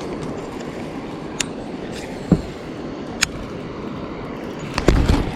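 Steady rushing outdoor noise, with three sharp clicks spread through it and a heavier low thump near the end.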